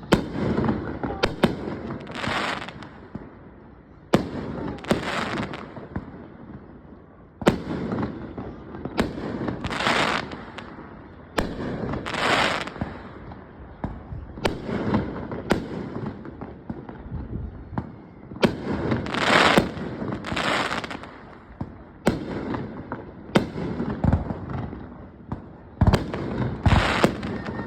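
Aerial fireworks going off in quick, irregular succession: sharp bangs, several of them followed by a short hissing burst as the shells break.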